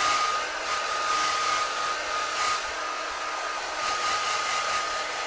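Handheld hair dryer running steadily: a constant motor whine under the rush of blown air, the air noise swelling and easing now and then.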